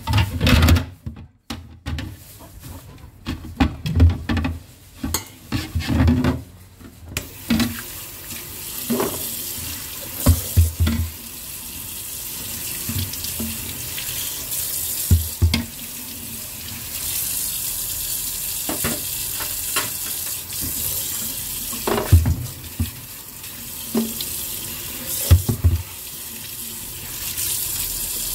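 Kitchen tap running into a stainless steel sink as a glass shelf is washed and rinsed, with knocks and clatter from the shelf being handled against the sink. The clatter comes first; the steady hiss of the running tap starts about seven seconds in, with a knock every few seconds over it.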